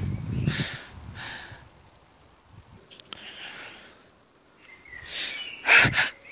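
A person breathing hard in short, noisy breaths close to the microphone, with louder rushes of breath near the end.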